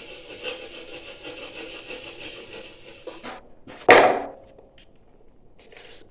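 Hand-sawing soft refractory board: steady scratchy back-and-forth strokes for about three seconds. Then a single loud knock, with a short ring, about four seconds in, and a brief faint scrape near the end.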